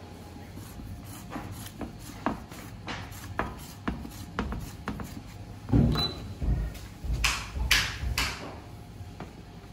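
Handling sounds of chopped pistachios being spread and pressed into a round aluminium baklava tray by hand and with a metal scraper: light clicks and scrapes, a knock about six seconds in, then a few brief swishes.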